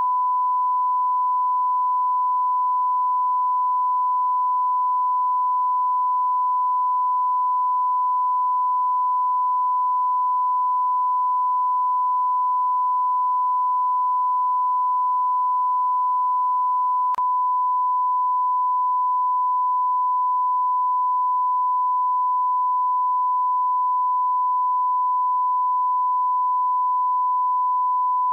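Steady 1 kHz sine-wave test tone, a continuous pure beep held at one pitch, with one faint click about two-thirds of the way through.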